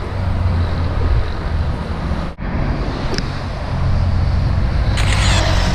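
Car driving: steady engine hum with road and wind noise, briefly dropping out a little over two seconds in and swelling into a louder rush near the end.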